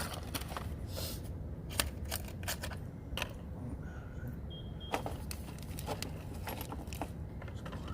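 Scattered metallic clinks and clicks of hand tools and spark-plug parts being handled, over a steady low rumble.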